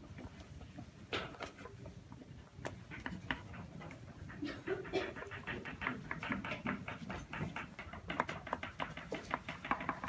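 Pencils writing on paper at classroom desks: a quiet, irregular run of small scratches and ticks that grows busier partway through.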